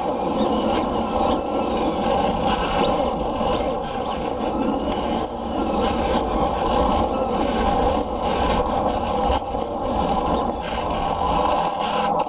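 A 1/10-scale RC drift car driving, heard from its onboard camera: the motor's whine rises and falls with the throttle over a continuous scraping of the hard drift tyres sliding across the smooth floor.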